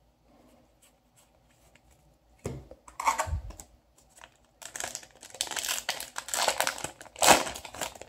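A Yu-Gi-Oh! booster pack's foil wrapper being torn open and crinkled: a few rustles about two and a half seconds in, then a longer run of crackling crinkles with the loudest burst near the end.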